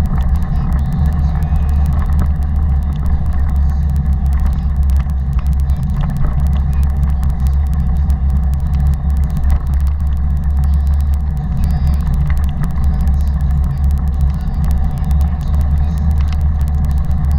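Taga cargo bike rolling along a paved path: a steady, loud low rumble from the tyres and the bike's frame.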